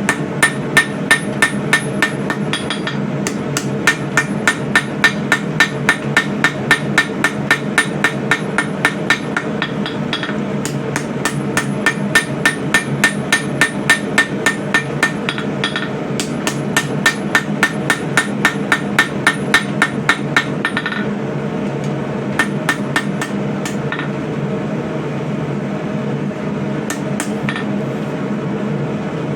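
Blacksmith's hand hammer striking hot coil-spring steel on the anvil, straightening the blade's spine. The blows come in quick runs of about three a second with short pauses between, then thin to a few scattered blows in the last third, over a steady noise underneath.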